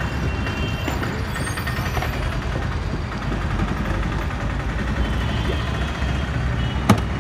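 Steady street traffic rumble, with one sharp knock near the end.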